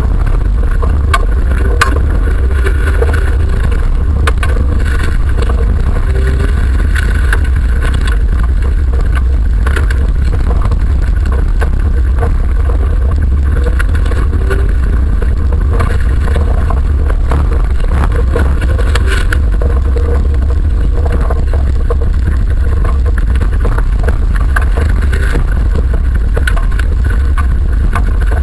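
Autocross car's engine running under load at speed on a dirt track, heard inside the cabin as a loud, steady low rumble mixed with road noise, with scattered clicks and knocks.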